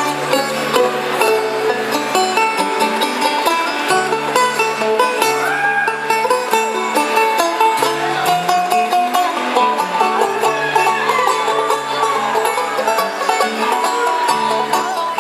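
Acoustic string band playing an instrumental break live: banjo picking over guitar, with a bass line moving underneath.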